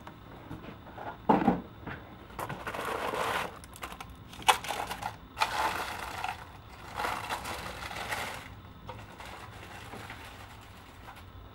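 Stiff plastic packaging insert being handled and pulled apart to free a model car: on-and-off crinkling and rustling with a few sharp clicks.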